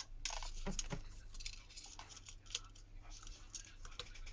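Irregular small clicks and light taps of hand tools and parts against a smartphone during a repair, thicker in the first second or so.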